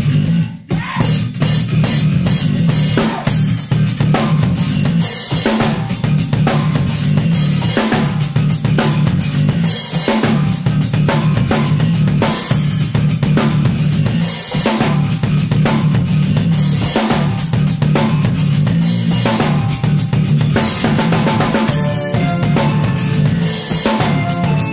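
Band playing loud instrumental rock: a busy drum kit, with kick, snare and cymbal hits in quick succession, over a steady low electric bass line. The band drops out briefly about half a second in, then comes back in.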